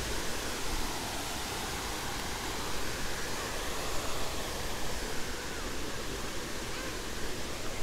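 A waterfall's steady rush of falling water, an even hiss with no breaks.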